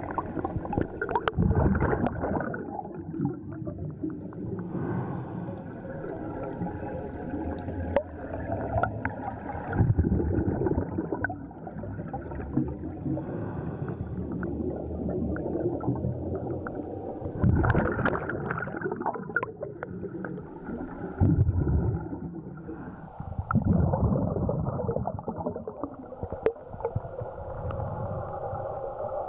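Scuba diver breathing underwater: regulator exhaust bubbles gurgling and rumbling, in louder bursts every few seconds.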